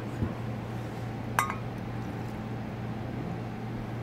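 One sharp clink of kitchenware against a glass bowl about a second and a half in, with a short ring, over a steady low hum.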